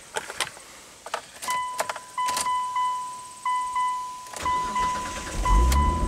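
Key clicks in the ignition, then a steady electronic beep with short breaks. About four seconds in, the starter cranks the 2002 Mitsubishi Eclipse's engine, which catches and starts running near the end.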